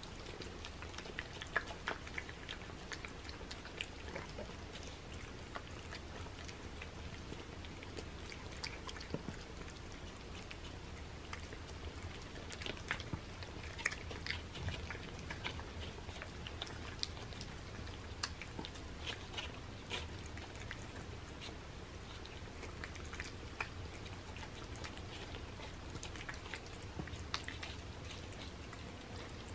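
Several cats chewing and licking wet canned cat food: faint, irregular small wet clicks throughout.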